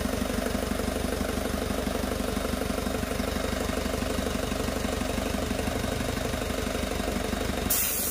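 Isuzu 4JX1 turbodiesel engine idling with a steady, fast, even rhythm. A burst of hiss comes in near the end.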